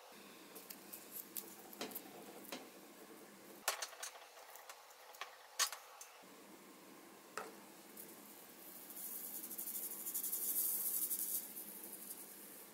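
Scattered light clicks and taps as a bent copper pipe is handled, then, about nine seconds in, a high hiss lasting a few seconds as the packing sand pours out of the pipe into a paper cup.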